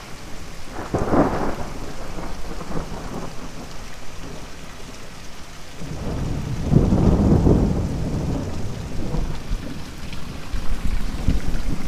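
Torrential downpour with thunder rumbling: a short burst about a second in, then a longer, deeper rumble from about six seconds in, the loudest sound here.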